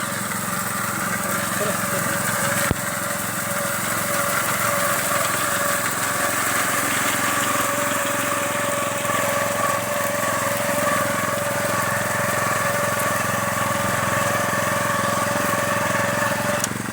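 Small engine-driven wheat harvesting machine running steadily, a constant engine note with a steady whine over it. A single sharp click about three seconds in.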